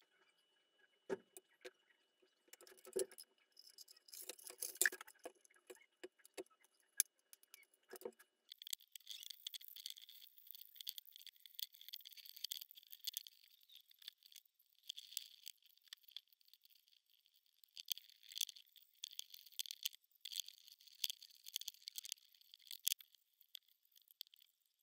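Faint handling noises of small parts and plastic pieces clicking and knocking on a table, then, from about eight seconds in, the crackling rustle of a flexible aluminium foil duct being handled and fitted onto a 3D-printed plastic housing, with scattered clicks.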